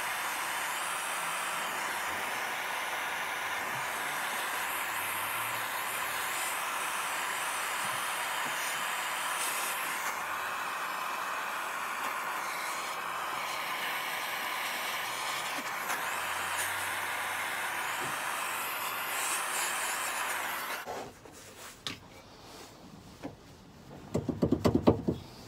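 Handheld gas-canister blowtorch burning with a steady hissing flame, heating a seized, corroded tow bar lock housing to free it; the flame cuts off suddenly about 21 seconds in. Near the end comes a short run of rapid metal knocks and rattles as the seized tow bar neck is wrenched by hand.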